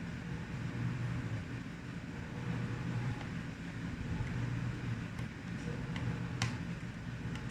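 Steady low hum under a few light, sharp clicks in the second half, the sharpest about six and a half seconds in: small hand-tool work on a laptop's plastic case and screws during disassembly.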